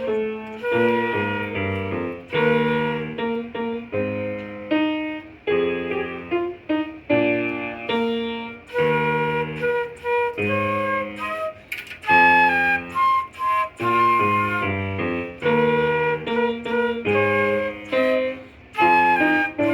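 Concert band music with flute and other woodwinds on top: a brisk passage of short, detached notes in a steady rhythm.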